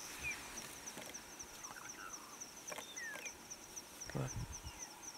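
An insect chirping in a fast, even, high-pitched rhythm, several chirps a second, with a few faint bird notes over it.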